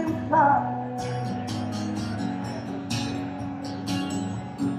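Acoustic guitar strummed live and played through a PA system, with steady sustained chords.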